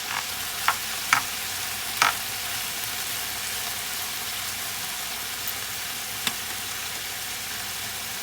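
Chunks of seasoned chicken breast frying in olive oil in a pan, a steady sizzle, with a few sharp knocks or clicks in the first couple of seconds and one more later on.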